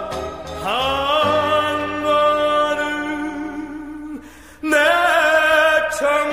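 Recorded Korean popular song, a male singer with instrumental backing, holding a long wavering note. The note breaks off briefly about four seconds in, and the next sung phrase starts.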